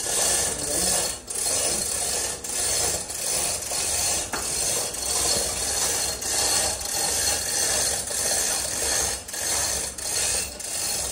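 Manual chain hoist ratcheting and its chain rattling in repeated pulls, about one a second, as it lifts an engine out of a car's engine bay.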